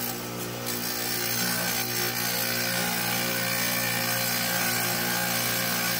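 Wet tile saw running steadily with its motor hum as a tile is pushed through the blade. The cutting noise gets louder about a second in.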